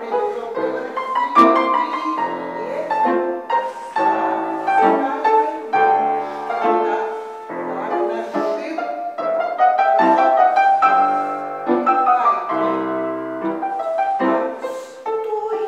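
Piano playing a classical piece, with chords and bass notes changing about once a second. A single sharp knock sounds about a second and a half in.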